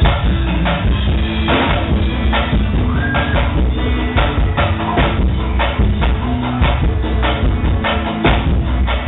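Live band playing loud amplified music on stage during a sound check: a drum kit keeps a steady beat under bass and keyboard.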